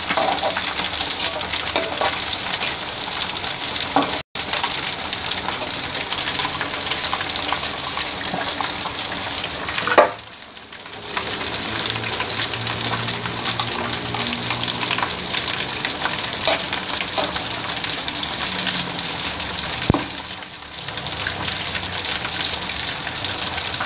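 Flour-coated chicken pieces deep-frying in hot oil in a wok, a steady sizzle with crackling, while metal tongs and a slotted ladle scrape and clink against the wok as the pieces are turned. A sharp knock comes about ten seconds in and again near twenty, each followed by a brief drop in the sizzle.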